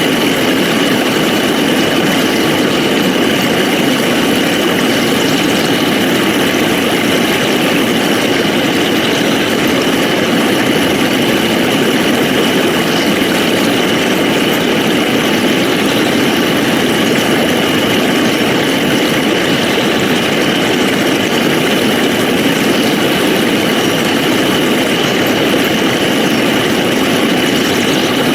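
Loud, steady engine-like drone with a constant high whine running through it, unchanging in level and pitch.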